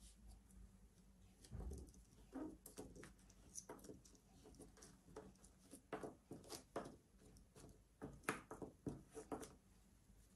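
Baked chocolate macaron shells being picked up and turned over on a baking mat: a scatter of faint, irregular taps and clicks.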